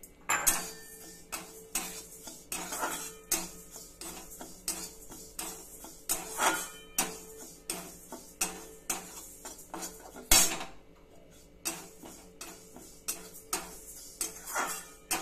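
Metal spatula scraping and knocking against a metal kadai, stirring dry moong dal as it roasts lightly, in repeated strokes about two a second. One sharper, louder clank about two-thirds of the way through.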